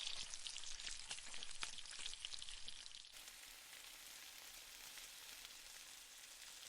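Marinated chicken pieces frying in oil in a pan: a sizzling hiss with crackling pops that drops abruptly to a fainter, steadier sizzle about three seconds in.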